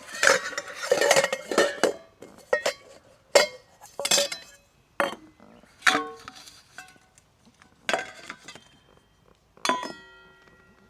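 Dishes and utensils clinking and knocking as they are handled, a dozen or so irregular strikes, some ringing briefly; the last near the end rings on for about a second.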